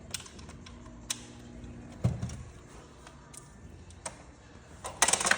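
Hand tools clicking and knocking on metal engine parts: scattered sharp clicks, a dull knock about two seconds in, and a quick rattle of clicks near the end, the loudest part.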